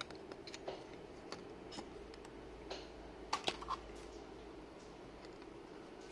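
Light clicks and taps of a Nokia TA-1114 phone's circuit board and LCD module being handled on a workbench, with a cluster of three sharper clicks about three and a half seconds in, over a faint steady hum.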